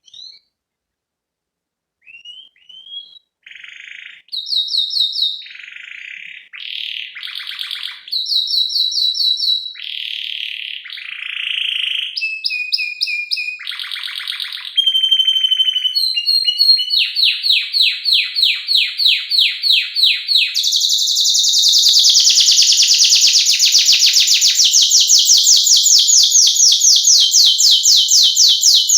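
Domestic canary singing: after a couple of seconds of quiet, a string of short, varied whistled phrases and trills, building into a long, fast rolling trill that carries on loudly from about three-quarters of the way in.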